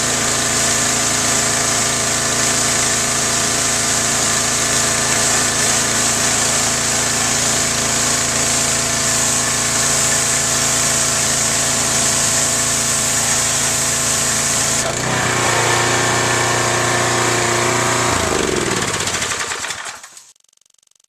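Troy-Bilt 2700 PSI gas pressure washer running with its water jet spraying, a loud steady engine note under a strong high hiss. About fifteen seconds in the spray stops and the engine keeps running. A few seconds later the engine is switched off and winds down to silence.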